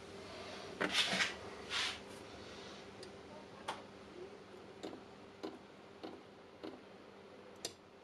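Handheld battery spot welder firing a series of short, sharp snaps, about seven in the second half, as nickel strip is welded onto the end of an 18650 cell; a couple of handling rustles come before them.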